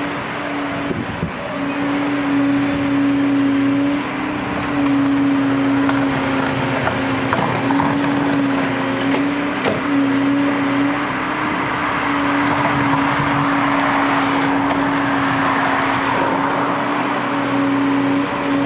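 Liebherr A316 wheeled excavator's diesel engine and hydraulics running under working load, with a steady hum that dips briefly a few times, and a few short knocks.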